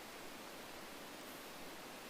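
Faint, steady hiss of background noise, with no clear bird calls.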